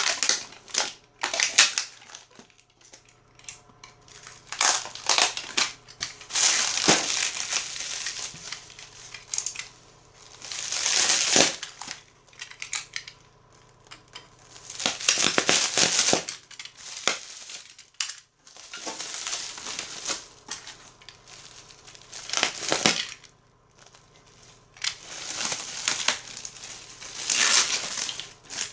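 Packing materials being handled during an unboxing: irregular rustling and crinkling, on and off, as wrapping and foam are pulled and crushed.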